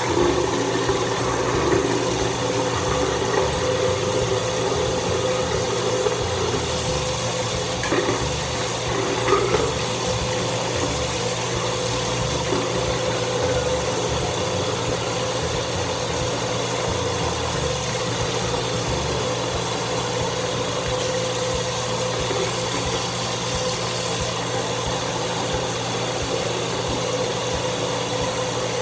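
Bathroom sink tap turned on at the start and left running, a steady rush of water over a low hum. A few small clicks and knocks come about a third of the way in.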